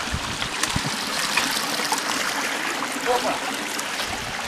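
Water rushing and splashing steadily down the stepped cascades of a waterfall.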